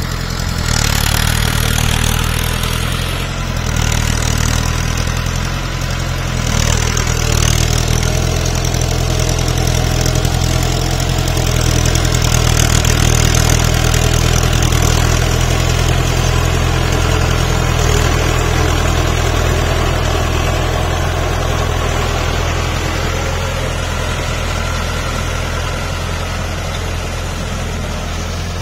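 Mahindra 555 DI tractor's diesel engine running steadily under load as it pulls a rotavator through wet paddy mud.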